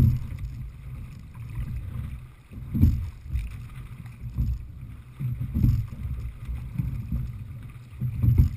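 Wind buffeting the microphone and choppy water rushing along the hull of a Heritage 18 open-water rowing shell being sculled, a steady low rumble that swells louder about every three seconds with each oar stroke.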